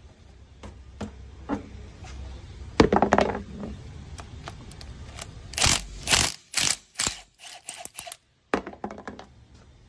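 Cordless impact wrench running in short bursts, loosening the bolts on a pickup's rear differential cover, with knocks and clacks of metal between bursts. The loudest run of bursts comes about six to seven seconds in.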